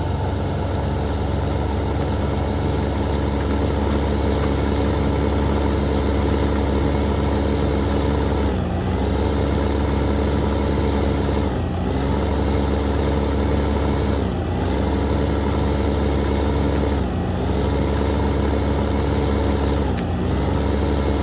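New Holland 8970 tractor's six-cylinder diesel engine running hard while pulling a plough. Its pitch briefly sags and recovers five times, about every three seconds.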